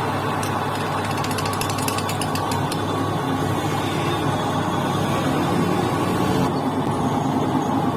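Metal lathe running steadily, with a fast rattle of sharp ticks from about half a second to three seconds in.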